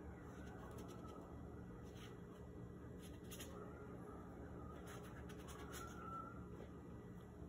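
Faint scratchy strokes of a paintbrush dragging acrylic paint across sketchbook paper, over a steady low hum.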